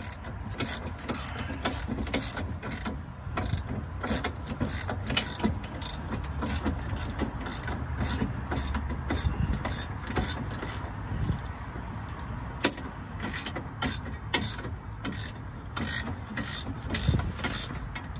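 Socket ratchet clicking in quick repeated strokes, two to three bursts a second, as the bolts of a newly fitted lateral arm are run down.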